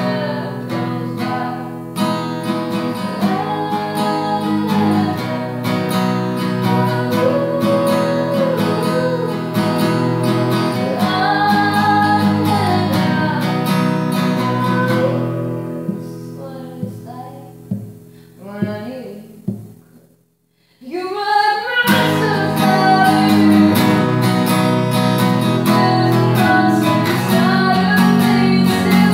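Acoustic guitar strumming with a bowed cello playing sustained melody lines. The music fades to a brief near-silent break about twenty seconds in, then comes back at full strength.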